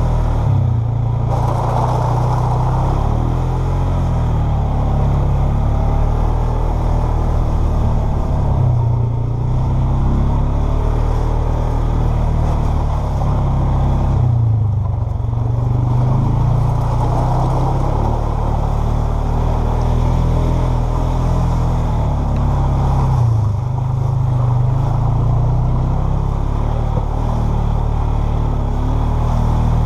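Polaris Sportsman 500 quad's single-cylinder four-stroke engine running under way on a trail, its note rising and falling with the throttle.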